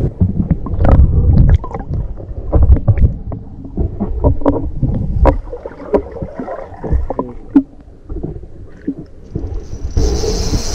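River water heard through a submerged camera microphone: muffled low rumble and sloshing with many short knocks and clicks. Near the end the sound opens up and turns hissier as the camera comes out of the water.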